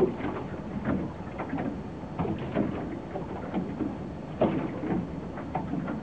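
Water lapping and splashing in quick, irregular bursts, several a second.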